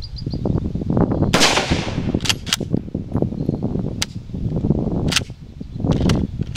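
A single shot from a Ross Mk II straight-pull rifle in .303 British about a second and a half in, with a long echoing tail. Several sharp metallic clicks follow, the last of them as the straight-pull bolt is worked to reload.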